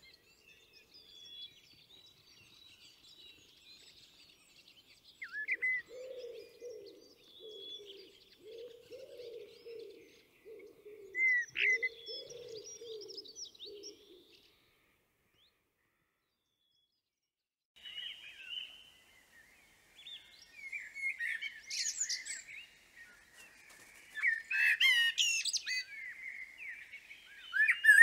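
Eurasian blackbird singing: warbled, fluty phrases with higher twittering, faint at first and louder in the second half, broken by a few seconds of silence midway. For several seconds in the first half a low, pulsing sound runs beneath the song.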